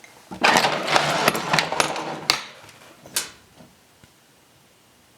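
Clattering and rattling of hard parts being handled for about two seconds, ending in a sharp knock, then a single knock about a second later.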